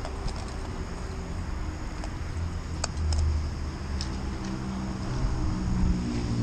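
Low rumble of road traffic, engines passing over or near the bridge, swelling twice, with a few light clicks on top.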